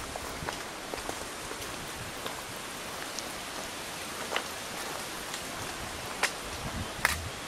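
Steady rushing of a mountain torrent, the Rio Valgrande, in its rocky gorge, an even hiss of white water, with a few sharp clicks near the end.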